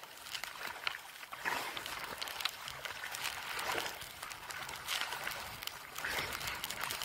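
Choppy seawater splashing and sloshing right at the camera at water level, with a louder surge of spray every second or so as wavelets break over it.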